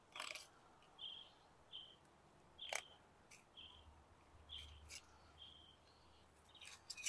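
Faint, repeated short high chirps of a small songbird, about one every half second to second. Between them come a few sharp clicks as a fillet knife cuts through a black sea bass on a plastic cutting board.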